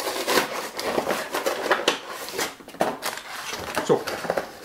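A small cardboard toy box being turned over and handled: irregular rustling and scraping with scattered light clicks.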